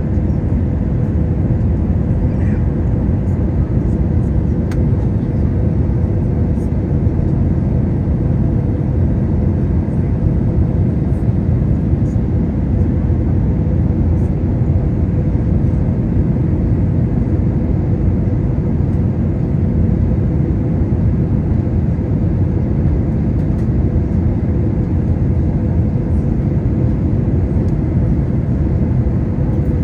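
Steady cabin roar inside an Airbus A321 airliner on its descent to land: engine and airflow noise, heavy and low, with a faint steady hum above it.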